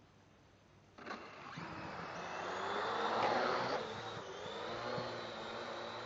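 Parrot AR.Drone 2.0 quadcopter's four motors and propellers spinning up about a second in. The sound grows louder to a peak as it takes off, then settles into a steady whine while it hovers.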